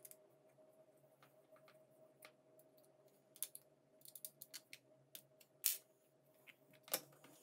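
Faint small clicks and ticks of a hex key turning a small metal screw into 3D-printed plastic parts, with hands handling the plastic case. The clicks come irregularly, a few louder ones about three and a half seconds in, near six seconds and just before the end.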